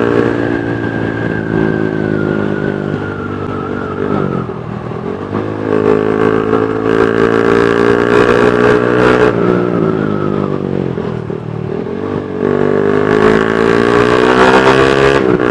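Honda New CB150R's single-cylinder engine running on the road through a 3Tech Spartan GP racing exhaust, with a noisy note. The pitch drops and picks up again about four seconds in, falls away again around ten seconds in, and climbs as the throttle is opened once more.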